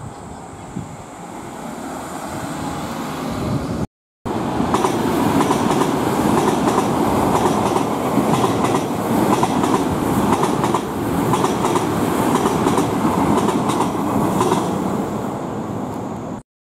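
Electric commuter train passing close by, its wheels clattering over rail joints. The noise builds as it approaches, cuts out briefly about four seconds in, then returns loud and steady with repeated clicks.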